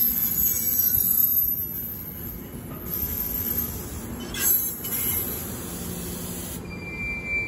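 NJ Transit passenger coaches rolling past over the rails, with wheel noise that eases off after the first couple of seconds. A brief high wheel squeal comes about four and a half seconds in.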